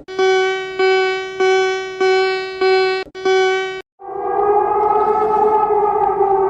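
Emergency alert alarm tone: a steady electronic tone pulsing six times about 0.6 s apart, then about four seconds in changing to a long held siren-like tone that falls slightly in pitch.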